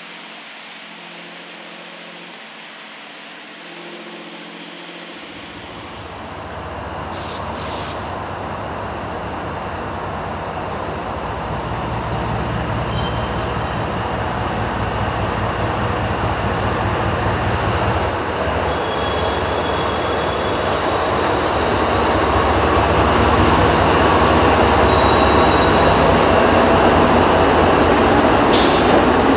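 CSX freight train led by two diesel locomotives approaching and passing close by. The deep engine rumble comes in about five seconds in and grows steadily louder as the locomotives draw near and go past, giving way to freight cars rolling by.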